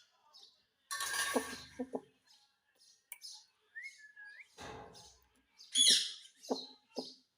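Pet parrot calling: scattered short high chirps, a harsh rasping burst about a second in, a short whistle near the middle, and a louder call about six seconds in.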